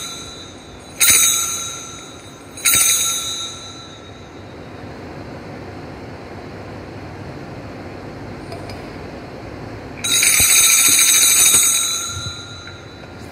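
Small altar bells rung at the elevation of the consecrated chalice: two sharp rings about a second and a half apart, each dying away, then an even, shaken peal of about two seconds near the end as the priest bows before the chalice.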